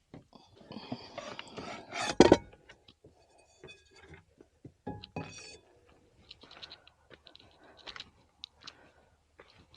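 Cooking gear being handled: rustling, one loud clunk about two seconds in, then lighter clinks and knocks of pans and utensils.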